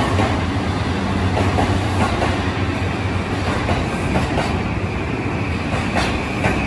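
JR East E235 series 1000 train moving along a station platform: steady running noise of wheels and motors, with a few clicks of wheels passing over rail joints.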